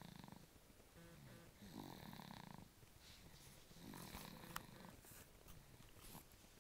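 A baby snoring softly, one rasping snore about every two seconds.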